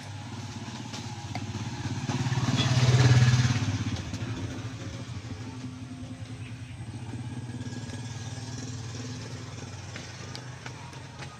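A motorcycle passes close by, its engine sound rising to a loud peak about three seconds in and then fading. A fainter engine swell follows about seven seconds in.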